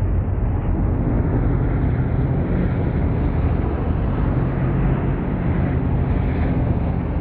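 Sprint car V8 engines running loud and steady in a dense, continuous drone.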